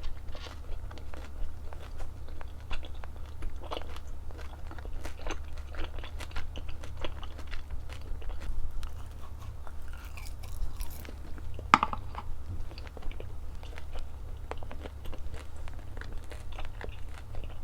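Close-miked chewing and crunching of food in many short, irregular strokes, over a steady low hum, with one sharper click about two-thirds of the way through.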